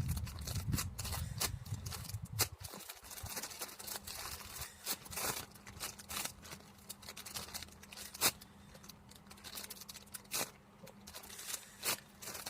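Hands handling a foam squishy toy close to the microphone: scattered light taps and soft rustles, over a faint steady hum. A low rumble stops about two and a half seconds in.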